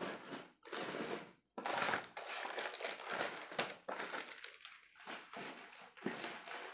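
Plastic wrappers of chocolate packets crinkling and rustling in irregular bursts as they are handled and packed into a suitcase.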